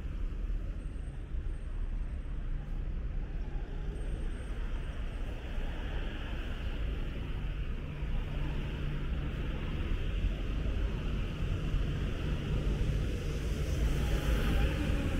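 Steady city road traffic on a rain-wet street: a low rumble of passing cars with tyre hiss, swelling a little louder near the end.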